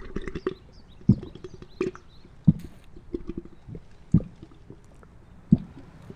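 A man gulping liquid straight from a glass bottle: four loud swallows about a second and a half apart, with small gurgles and clicks between them.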